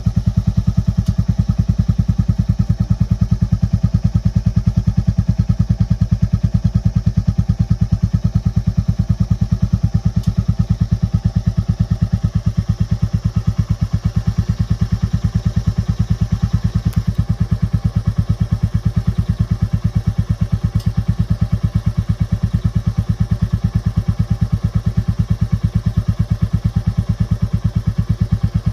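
Royal Enfield Classic 350's single-cylinder engine idling through its stock exhaust, a steady, even beat of low exhaust pulses that holds the same pace throughout.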